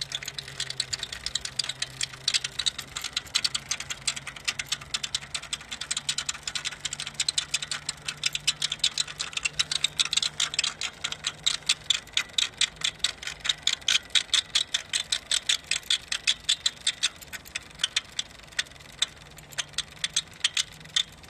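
Bridgestone Mariposa Mini motor unit running with a rapid, uneven clicking over a faint steady hum. The owner believes the primary gear's teeth are badly stripped; this is the noise at its early stage.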